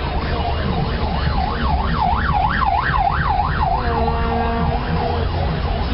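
A siren sweeping rapidly up and down, about three times a second, for a few seconds. After it comes a steady vuvuzela-like note of about a second, all over the low rumble of road and engine noise inside a moving car.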